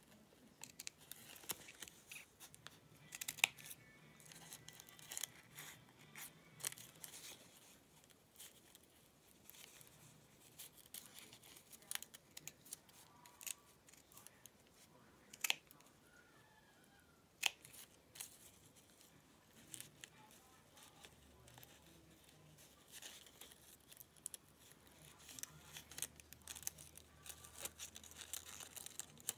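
Small scissors snipping fabric: a quiet, irregular series of short, sharp snips.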